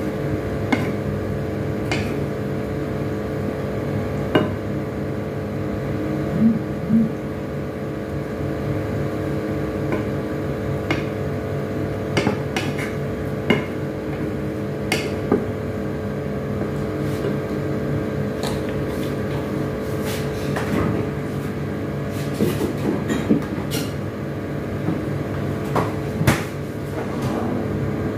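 A spatula stirring a creamy sauce in a frying pan, with scattered light clicks and knocks against the pan, over a steady mechanical hum.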